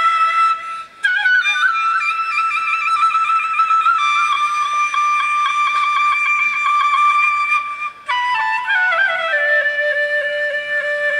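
Flute music: a slow melody of long held notes that step in pitch, with a falling run of notes near the end. It cuts out briefly twice, about a second in and again about eight seconds in.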